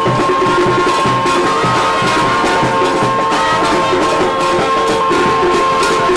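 Brass band music with drums: a long held high note over a steady beat of about two drum strokes a second.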